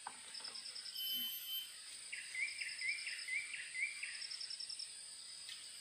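Wild birds singing: one repeats a short rising note about six times in a row through the middle, with short high rapid trills in between, over a steady high-pitched insect drone.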